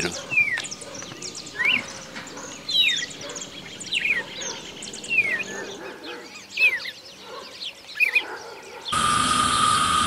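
Birds calling: short whistled notes, mostly sliding downward, about one a second over a faint outdoor background. About nine seconds in, these give way to a louder, steady hiss with a constant whine.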